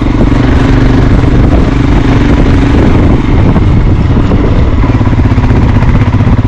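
A vehicle's engine running steadily and loudly, with constant road noise.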